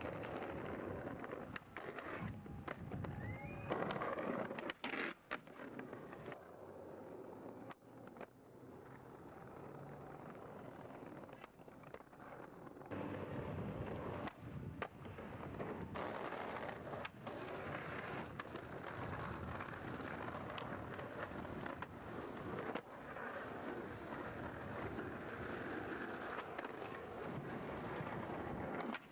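Skateboard wheels rolling over pavement, with several sharp clacks of the board popping and landing.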